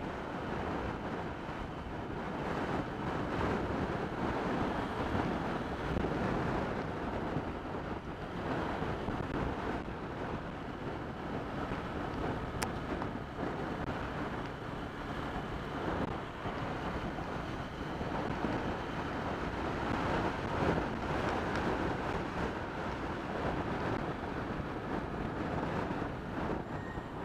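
Wind buffeting the microphone of a camera mounted on a moving motorcycle, a steady rushing noise, with the motorcycle's engine running underneath.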